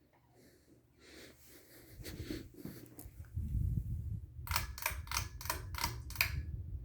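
Ceiling fan running, with a low rumble that builds over the first few seconds. Partway through comes a quick run of about seven sharp clicks, roughly three a second.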